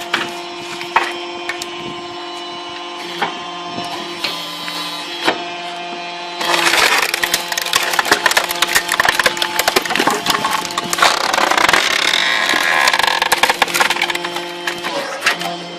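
Homemade firewood processing machine running with a steady hum and occasional knocks, then about six seconds in wood begins cracking and splintering loudly for around nine seconds as a log is forced apart, stopping shortly before the end.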